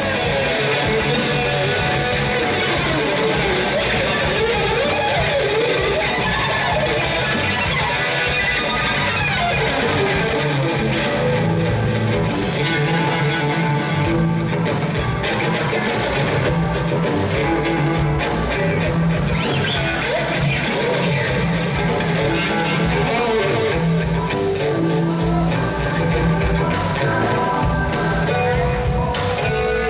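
Rock music led by guitar, playing steadily without a break.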